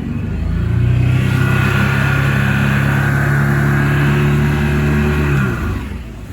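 Outboard motor throttled up from idle, holding a higher steady run for about five seconds, then easing back down. Its lower unit is burnt up: the owner's best guess is failed lower-unit seals that let all the gear oil out.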